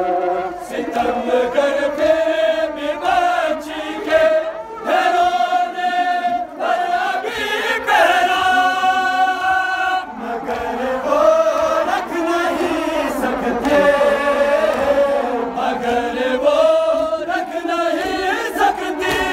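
A group of mourners chanting a noha, the Shia mourning lament, together in long held, drawn-out sung phrases.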